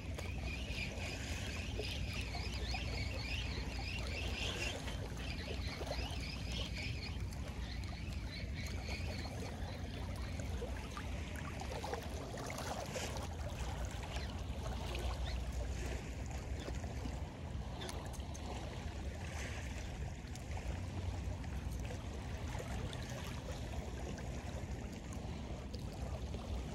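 Wind rumbling on the microphone over water lapping and trickling at a shallow sandy beach, with high chirping sounds during roughly the first nine seconds.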